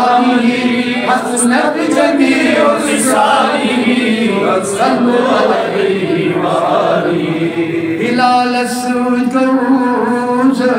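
A man's voice chanting a Kashmiri naat, a devotional poem in praise of the Prophet, with a long held note from about eight seconds in.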